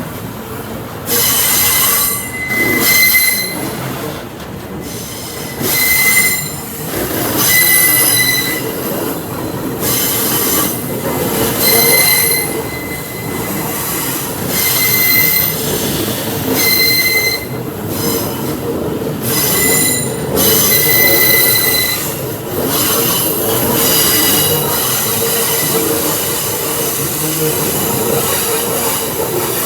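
Wagons of an Aurizon freight train rolling past with a steady rumble, their wheels squealing again and again in short high-pitched whines every second or two. The squeals thin out near the end.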